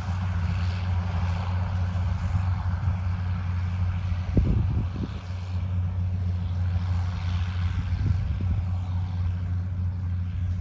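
Farm machine's engine running steadily with a low hum, with a few knocks about four seconds in.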